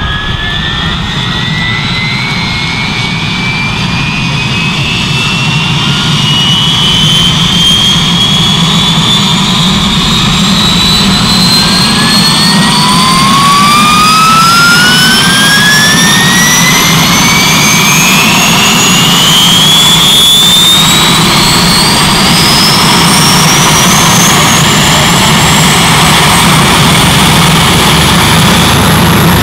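Bell UH-1 Huey's turbine engine starting up: a whine that climbs steadily in pitch over a steady low hum as the main rotor starts to turn, growing louder over the first few seconds and then holding.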